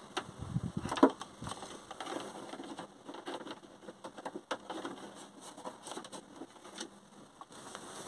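Hands working a plastic dashboard panel and its wiring: scattered clicks, taps and rustles, the loudest a knock about a second in.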